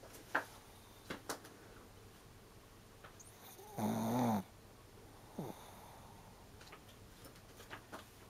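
Sleeping pug snoring: one loud snore lasting about half a second, about four seconds in, with a few short clicks before and after it.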